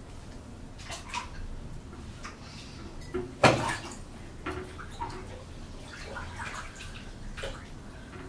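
Water sloshing in a bathtub as a person climbs in and sits down, with scattered small knocks against the tub and one loud splash about three and a half seconds in.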